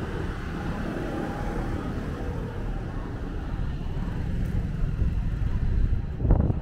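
Street traffic rumble, swelling as a vehicle passes close near the end.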